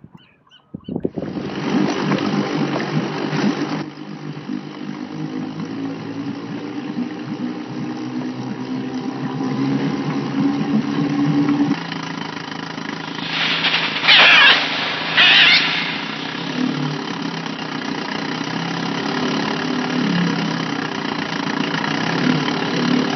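An engine running steadily, its pitch and level shifting slightly a few times, with two short, loud, higher sounds about two thirds of the way through.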